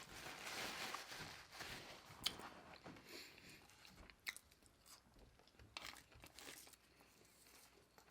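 Close-miked eating: chewing and biting with crunches, a noisy stretch at first and then scattered sharp clicks.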